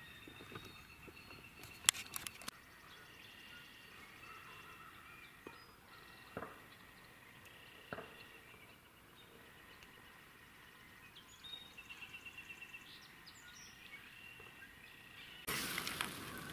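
Quiet woodland ambience with faint distant birdsong. A sharp click about two seconds in, a quick run of short repeated notes, about seven a second, around twelve seconds in, and near the end a louder rush of noise begins.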